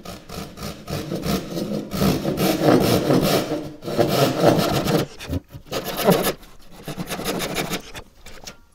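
Japanese kataba handsaw cutting slots through two Valchromat panels clamped together, in rapid rasping strokes broken by a few brief pauses.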